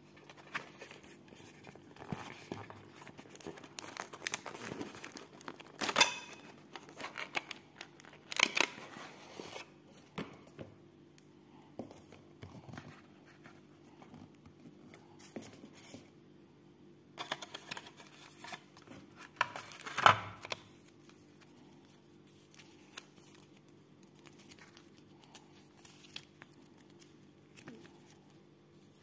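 Cardboard box and paper packaging being handled and opened: rustling, sliding and crinkling, with a few louder handling noises about six, eight and twenty seconds in.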